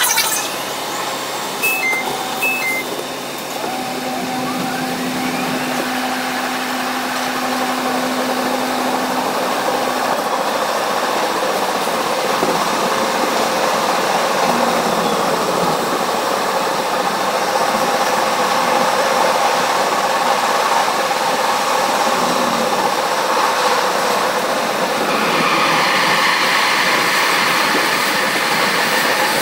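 Bombardier R62A subway train running through a tunnel: a steady rumble and hiss of steel wheels on the rails and its DC traction motors, with a faint rising whine about five seconds in.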